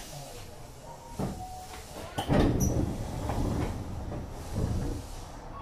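Sliding passenger doors of a Tokyo Metro 7000 series subway car opening at a station stop. There is a click about a second in, then the loudest part, the doors running open, a little after two seconds, lasting about a second and a half.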